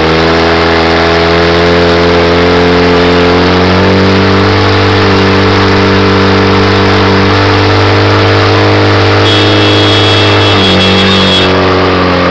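Portable fire pump's engine running loud and steady at high revs, its pitch climbing just at the start and shifting slightly a couple of times: the pump is under full load, driving water through the attack hoses.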